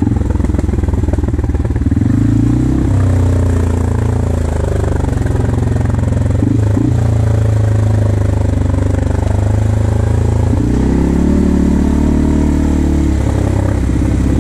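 CF Moto 450 ATV engine running steadily under way. Its pitch shifts about two seconds in and rises again near the ten-second mark as the speed changes.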